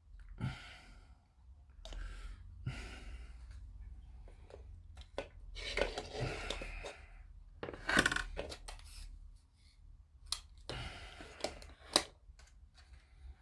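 Hands working small plastic model-kit parts and tools on a bench: bursts of rustling with sharp clicks and taps, the loudest taps about eight and twelve seconds in.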